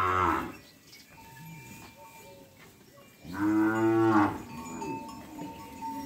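Kankrej cattle mooing: the tail of one call at the very start, then a single long, full moo about three seconds in that lasts about a second.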